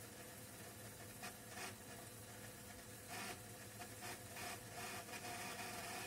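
Akai reel-to-reel tape deck running through a quiet stretch of tape with no music: faint steady hiss and low hum, with several short, soft scratchy rustles.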